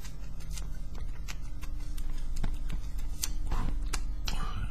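Puffing on a cigar: small, irregular lip smacks and clicks as the smoke is drawn in, over a steady low hum.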